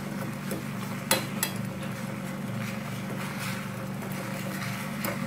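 Jaggery syrup bubbling at a boil in a steel saucepan while it is stirred with a spoon. The spoon knocks sharply against the pan twice, about a second in, over a steady low hum.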